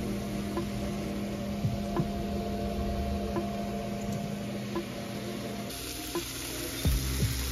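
Food sizzling steadily as it fries in a hot pan.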